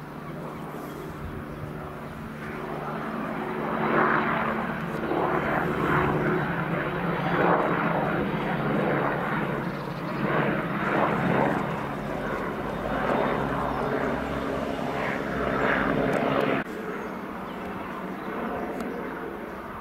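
Small military helicopter circling overhead: a steady drone of rotor and engine that swells and fades with a pulsing beat as it passes closest. It drops abruptly to a quieter drone near the end.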